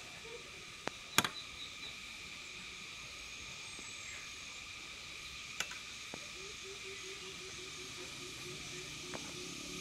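Steady chorus of insects such as crickets or cicadas, with a few sharp clicks and knocks, the loudest about a second in. From about two-thirds of the way through, a low, rapid pulsing call joins in.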